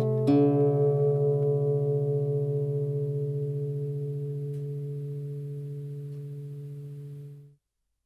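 Closing chord of a song played on guitar, struck just after the start and left to ring and slowly fade. It is cut off abruptly near the end, leaving silence.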